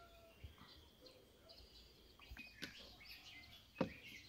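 Small birds chirping faintly over hands kneading dough in a plastic basin, with a sharp slap about four seconds in.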